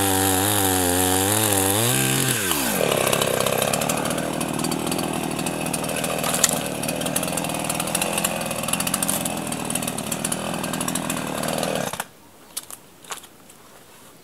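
Two-stroke petrol chainsaw cutting a branch at full throttle, its engine note wavering under load, then dropping back to idle for about nine seconds. The engine cuts off suddenly near the end, leaving a few faint knocks.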